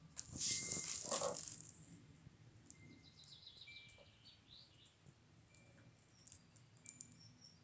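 A brief loud rustling, crackling noise about half a second in, then faint wild birds chirping: short high calls and a quick falling run of notes, scattered through the rest.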